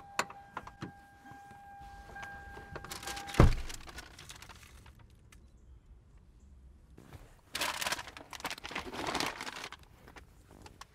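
Inside a car, a steady door-open warning tone sounds until a car door thumps shut about three and a half seconds in, cutting the tone off. A few seconds later a brown paper bag crinkles and rustles for about two seconds as it is handled.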